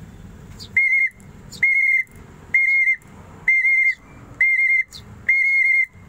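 A whistle blown in six short trilling blasts, about one a second, all at the same high pitch. It is a feeding signal meant to teach hand-reared fledglings to recognise feeding time.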